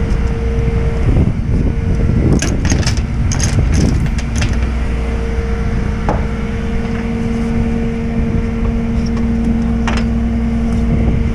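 A tow truck's engine runs steadily with a constant hum. A flurry of sharp metal clicks and clanks comes from about two to four and a half seconds in, and another about ten seconds in, as straps and hooks are handled on the flatbed deck.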